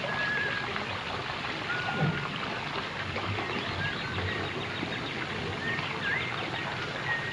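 Steady rush of running water with a few short, high bird chirps scattered over it.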